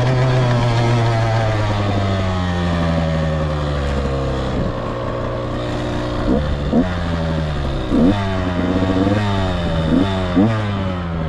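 Off-road vehicle engine running under load, its pitch easing down over the first few seconds as it slows, then several short, sharp throttle blips from about six seconds in.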